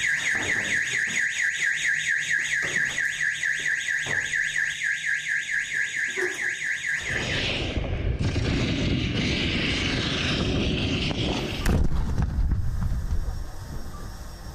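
An electronic alarm siren warbling rapidly, about four cycles a second, then cutting off about seven seconds in. Rough outdoor noise follows, with a single explosion bang about twelve seconds in.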